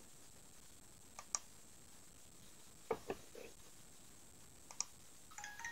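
A few faint, scattered clicks over a low steady hiss, with a melody of stepped notes starting near the end.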